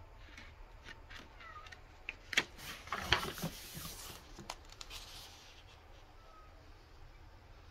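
Paper pages of a booklet rustling and flapping as a page is turned: a brief flurry of crinkles about two to four seconds in.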